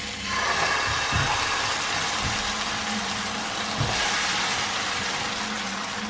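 Crepe batter sizzling in a hot oiled frying pan as it is ladled in and spread thin, the hiss starting just after the pour begins and slowly easing. A few soft, low knocks come through it.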